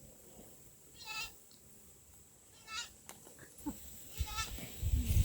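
Goats bleating: three short, quavering bleats about a second and a half apart. A loud low rumble comes in near the end.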